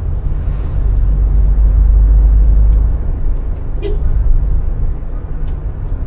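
Low rumble of road and engine noise inside a moving car's cabin, swelling for a couple of seconds, with two short clicks later on.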